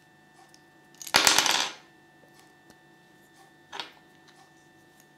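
Small hard plastic toy pieces clattering against each other as they are handled: a loud rattle of clicks about a second in, and a shorter, fainter clatter near four seconds.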